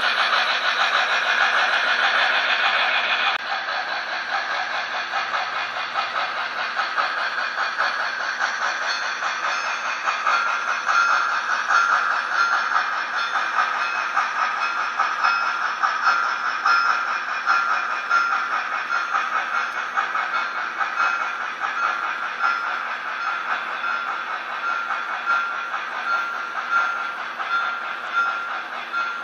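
Model freight train pulled by Roundhouse 2-8-0 locomotives running on the track, its wheels clattering over the rails with the whir of the models' motors; loudest in the first few seconds as the cars pass close by, with a faint high whine coming and going later on.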